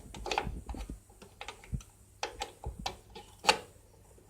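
Irregular sharp plastic clicks and taps of desktop RAM modules being pressed into their motherboard slots, the loudest click about three and a half seconds in.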